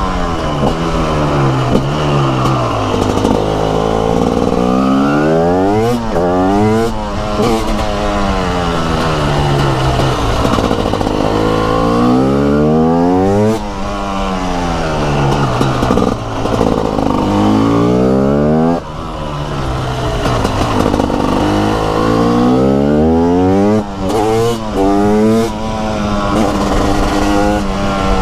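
TM SMR 300 single-cylinder two-stroke supermoto engine, raw exhaust sound, accelerating hard and backing off again and again. Its pitch climbs and drops repeatedly, with a few sudden cuts where the throttle is closed.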